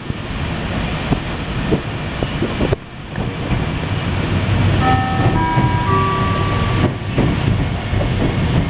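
In-car chime of a Meitetsu 7000 series Panorama Car: a short run of clear notes stepping upward, starting about five seconds in, over the train's steady running noise inside the car.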